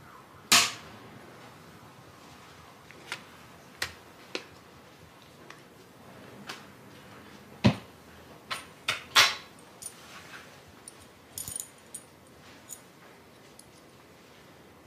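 A sheet of paper being folded and creased by hand: irregular sharp crinkles and snaps, the loudest about half a second in and two more around eight and nine seconds in.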